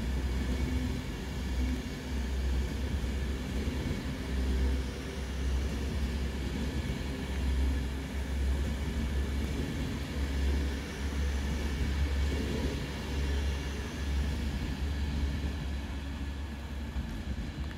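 A train running at a railway station: a steady low rumble that swells and fades, with faint steady hums over it.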